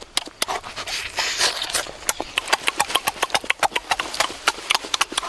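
Close-up wet mouth sounds of eating roast duck: rapid, irregular lip smacks and chewing clicks.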